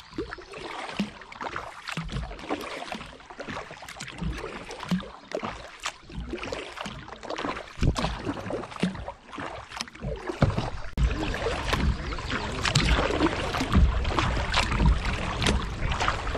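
Kayak paddle strokes in calm river water: the blades dip and pull with irregular splashes and drips. A low rumble grows louder about two-thirds of the way through.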